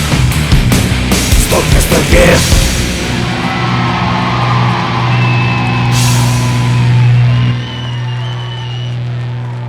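The end of a rock song: the band plays a few loud drum hits, then from about three seconds in it holds one sustained, distorted final chord over a steady low note, which dies down near the end.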